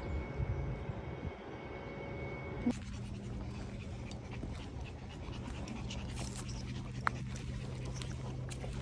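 Small dog panting on a walk; the background changes abruptly about three seconds in.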